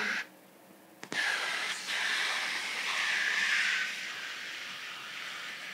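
Steady hiss that cuts out about a quarter second in, then returns with a sharp click about a second in and fades after about four seconds.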